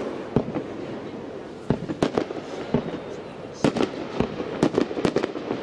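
Fireworks display: a run of sharp bangs from bursting shells, some single and some in quick clusters, over a continuous background rumble.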